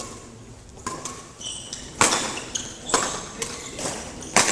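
Badminton rally: about five sharp racket-on-shuttlecock hits, roughly one a second, the loudest about two seconds in and near the end, with short shoe squeaks on the court floor between them.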